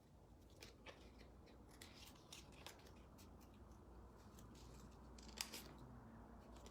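Scissors snipping through folded cardstock while trimming around a paper cutout: faint, irregular short snips, the sharpest about five and a half seconds in.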